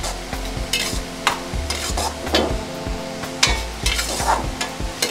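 A steel ladle stirring Maggi noodles in a little broth in a black wok, with irregular scrapes and clinks of the ladle against the pan.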